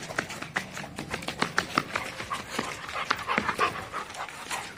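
Labrador retriever panting in quick, uneven breaths.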